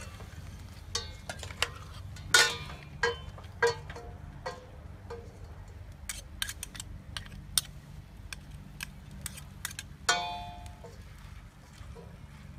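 Metal ladle and spoon knocking against a stainless steel cooking pot as pieces of fish are stirred: a string of short ringing clinks, louder in the first few seconds and again about ten seconds in, with lighter ticks in between.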